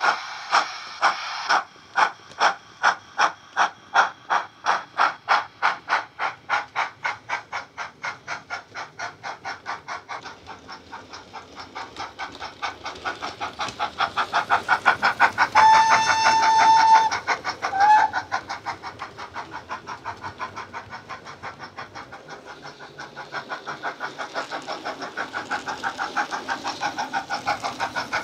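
Bachmann OO gauge GWR Hall model locomotive's DCC sound decoder, with a Jamie Goodman steam sound file, playing through a megabass speaker in the tender: steam exhaust chuffs that quicken from about two a second to a rapid beat, fading and then swelling again. About halfway through comes a long whistle, then a brief second toot.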